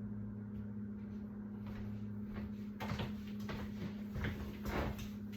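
Steady low hum, with a run of knocks and clicks from about three seconds in.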